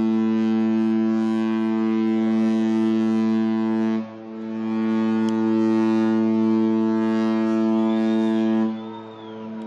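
Cruise ship's horn sounding two long, low, steady blasts: the first holds until about four seconds in, then after a brief break a second one runs until it cuts off near the end.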